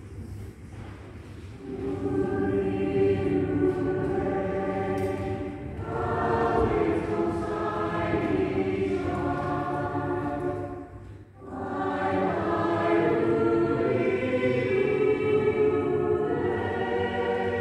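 A choir singing long-held chords, coming in about two seconds in, with a short break a little past halfway before the voices resume.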